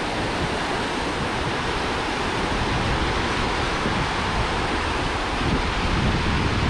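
Water rushing out through the sluices of a canal lock as the lock chamber is drained to lower a boat, a steady, even rush.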